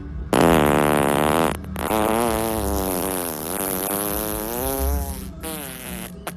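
A man farting: a pitched fart of about a second and a half, then after a short break a longer one of about three and a half seconds whose pitch wavers up and down.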